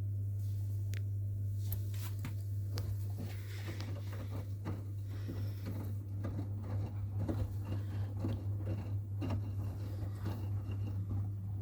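Washing machine running a wash cycle: a steady low hum with water and laundry sloshing and clicking in the turning drum, starting about half a second in.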